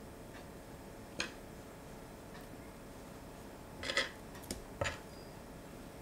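Metal tongs clicking and tapping against a bowl as strips of pan-fried chicken are set down on the stew. There is one click about a second in and a short cluster of clicks around four to five seconds in, over a faint steady hiss.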